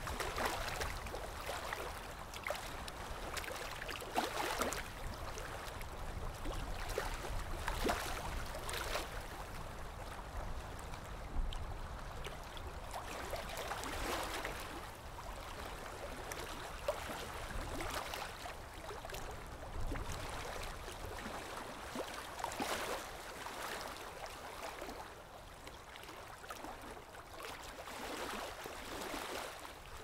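Shallow stream running over stones and leaves: a steady rush of water whose gurgling swells and fades irregularly every few seconds, over a low rumble of wind on the microphone.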